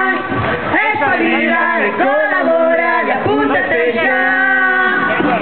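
Carnival troupe singing a song through a microphone, with long held notes.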